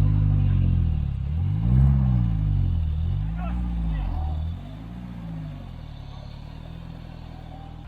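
An off-road 4x4's engine revved hard several times in a row, the pitch rising and falling with each push on the throttle as it strains through a muddy stream. About halfway through it drops back to a quieter, steady run.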